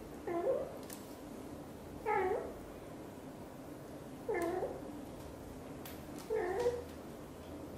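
Adult British Shorthair mother cat giving four short meows, about two seconds apart, each bending down and back up in pitch, as she grooms her kitten.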